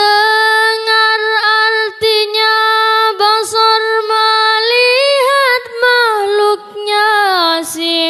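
A woman's voice singing unaccompanied, drawing out long held notes with melismatic turns and short breaths between phrases, in a devotional song on the twenty required attributes of Allah.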